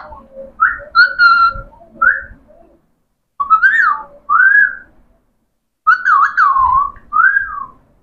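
Alexandrine parakeets whistling: short, loud whistles that swoop up and down in pitch, in several bursts separated by brief silences.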